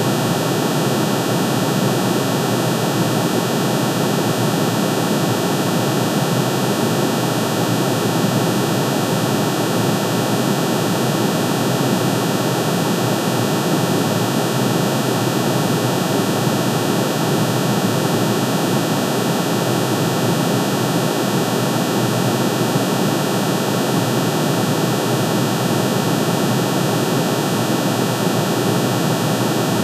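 Aluminium's atomic spectrum turned into sound: many sine tones, one for each spectral line, pitch-shifted into hearing range and summed into a single steady, hiss-like drone spanning low to very high pitches. It holds unchanged throughout, with no rhythm.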